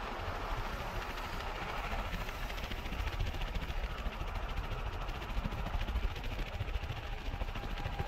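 Road noise from a moving vehicle: a steady low engine rumble with tyre and traffic noise along a city road.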